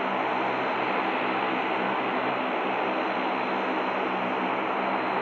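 Airbus A320-232's IAE V2527 turbofan engines running at taxi idle: a steady rushing noise with a few steady low hums and a thin high whine.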